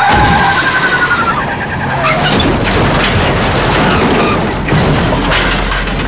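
The high ringing tones of a sonic scream fade out over the first second and a half as a truck is blasted over, giving way to a crash and the metal body grinding and scraping along the road as it rolls onto its roof, with heavy impacts about two seconds in and near five seconds.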